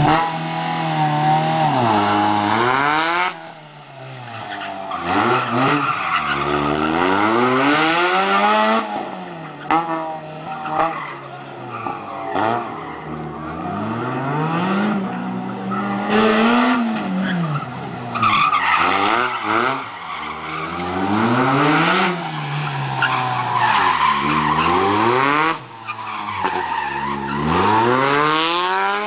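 Small competition car's engine revving hard and dropping back again and again through a tight cone course, with tyres squealing and skidding. The engine briefly eases off twice, a few seconds in and near the end.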